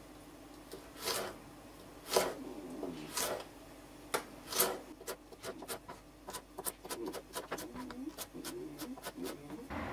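Kitchen knife slicing a green bell pepper into strips on a cutting board: a few separate cuts, then quicker strokes, about four a second, in the second half.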